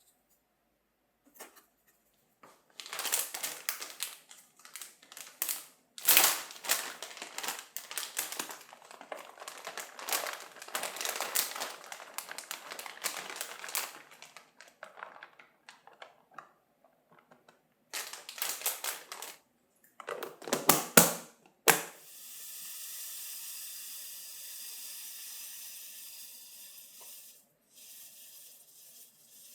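Kitchen handling sounds: irregular rustling, crinkling and clatter with a few sharp knocks, then a steady rushing hiss for about five seconds that cuts off suddenly.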